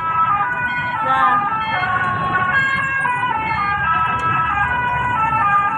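Telolet horn playing a tooting melody of several stepped tones over a low vehicle rumble. The horn keeps going without stopping.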